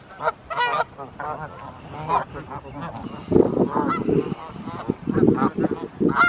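A flock of geese honking, many short calls in quick, overlapping succession.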